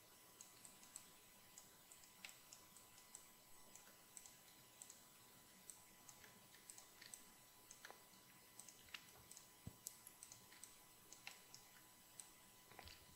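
Near silence broken by faint, irregular clicks of a computer mouse and keyboard, a few each second.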